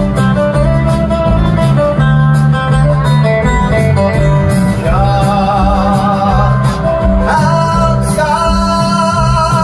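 Live country-rock band playing loudly: acoustic and electric guitars over hand percussion, with a wavering, held melody line coming in about halfway through, sung or played lead.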